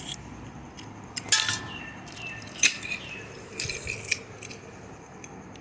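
Small metal parts of a motor-starter contactor clinking and clicking as it is taken apart by hand. There are several sharp clinks with short metallic ringing, the loudest a little over a second in and again near the middle.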